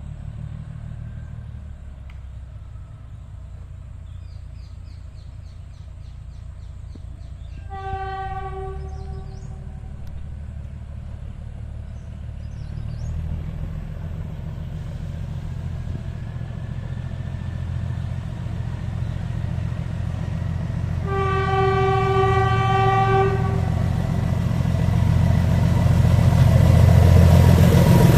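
Narrow-gauge diesel train sounding its horn, a short blast about eight seconds in and a longer one about twenty-one seconds in, over a low engine rumble that grows steadily louder as it approaches.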